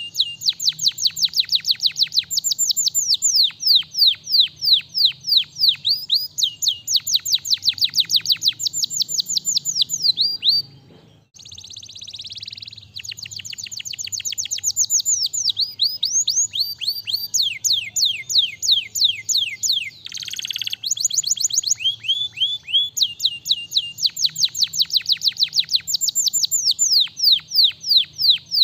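Domestic canary singing in long, fast trills of rapid, repeated, high down-slurred notes, about six a second. The song breaks off briefly about eleven seconds in, and harsher rasping phrases come just after that and again near twenty seconds.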